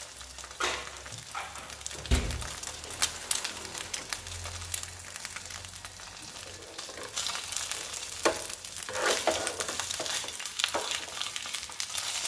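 An egg frying in a little oil in a non-stick pan on a gas burner: a steady sizzle with many small crackling pops. A low thump comes about two seconds in.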